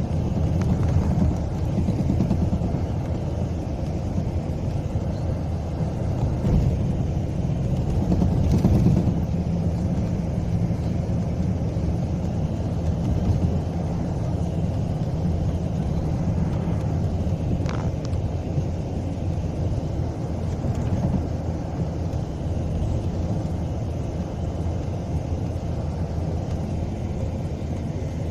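Train running at speed, its wheels clattering steadily on the track over a continuous low rumble. About two-thirds of the way through, a brief high sound falls in pitch.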